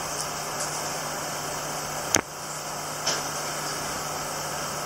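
Steady mechanical hum with an even hiss, broken by a sharp click about two seconds in and a softer click a second later.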